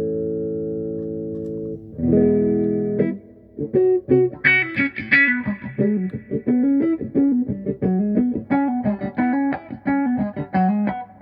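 Electric guitar played through a Vox 846 hand-wired wah pedal. A held chord rings, a second chord is struck about two seconds in, and then a quick run of single picked notes follows.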